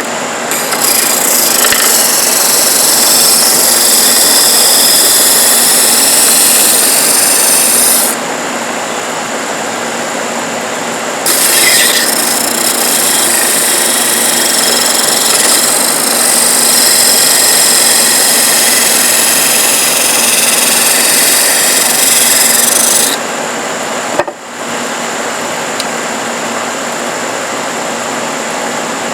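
Parkside bench-top disc sander running with a steady motor hum, while wood is pressed against the spinning sanding disc twice: a loud gritty hiss for about seven seconds, then after a short pause again for about twelve seconds. Near the end the disc runs with nothing against it.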